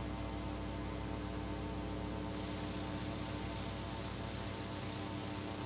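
Steady electrical mains hum, a stack of low buzzing tones, with a faint hiss: the background noise of an old analog video recording playing a silent title card.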